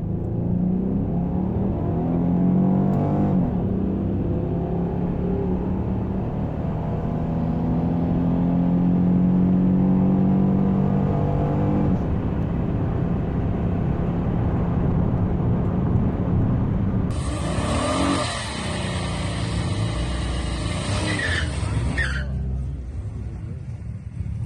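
A car engine accelerating hard, its pitch climbing with a drop about three seconds in like a gear change, then climbing for several seconds more before it levels off. From about seventeen seconds a loud hiss joins it for about five seconds.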